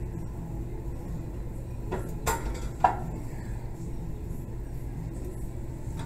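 Metal weight plates clanking as they are handled and slid onto a barbell: three knocks about two to three seconds in, the last one the loudest, over a low steady hum.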